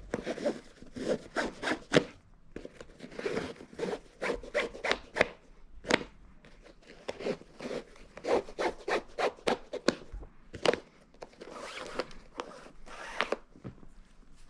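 Shoelaces being pulled through a sneaker's eyelets and handled: quick rubbing, zipping strokes with sharp clicks, coming in uneven spurts.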